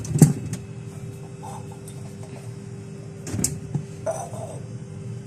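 Produce and containers being handled and set down on fridge shelves: a sharp knock just after the start and two softer clatters near the end, over a steady low hum.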